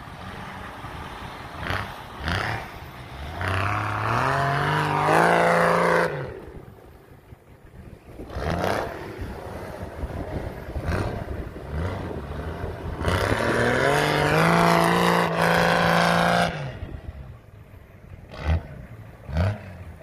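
An off-road 4x4's engine revving hard twice, its pitch climbing for about three seconds each time before it drops back. A couple of short sharp knocks come near the end.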